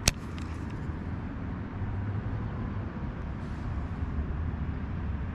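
A single sharp click right at the start, then a steady low rumble of wind buffeting the action-camera microphone.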